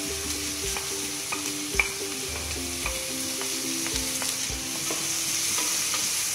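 Chopped onions, ginger-garlic paste and green chilli sizzling as they go into hot oil in a steel pressure cooker, stirred with a spatula, with several sharp knocks against the pot; the loudest knock comes about two seconds in.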